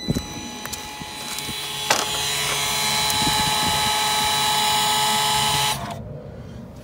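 Electric parking brake motor on the rear brake caliper of an Audi A3 8V (MQB) running with a steady whine as it winds the caliper piston back to release the parking brake. The whine stops abruptly near the end, once the piston is fully wound back.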